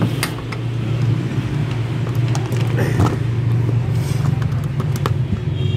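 A steady low rumble, with scattered light clicks and taps as a screwdriver and tools are handled against a plastic switch board.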